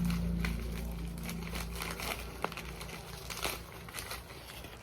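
Protective packaging crinkling and crackling in intermittent bits as it is peeled off a fragile spoon, with a few sharp ticks, over the steady low hum of an electric fan.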